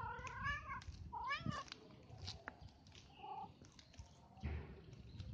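Street cat meowing twice in the first couple of seconds, each a drawn-out call that rises and falls in pitch.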